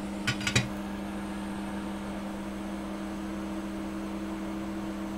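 Steady machine hum over a faint hiss, holding two even low tones, with two short sharp clicks about half a second in.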